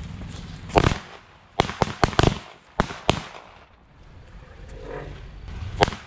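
A bundle of Diwali bird bomb firecrackers going off: a string of sharp, irregularly spaced bangs, about eight within the first three seconds and one more near the end. The loudest come about a second in and near the end.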